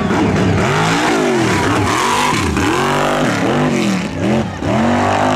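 One-ton class mud racing truck's engine revving hard, its pitch dropping and climbing again over and over as the throttle is worked through the turns.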